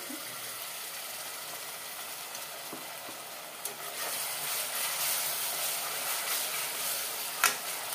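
Onions and ground mint-coriander masala paste sizzling in hot oil in an aluminium pressure cooker. About four seconds in a spoon starts stirring it and the sizzle grows louder, with one sharp knock near the end.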